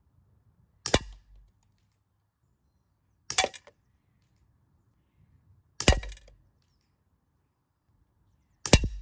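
CO2 pellet revolver firing four single shots, about two and a half seconds apart, each a sharp crack with a brief tail.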